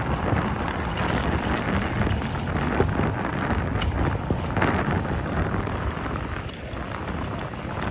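Wind buffeting the microphone of an electric bike being ridden along a road, with road traffic underneath. The noise is dense and steady and dips slightly near the end.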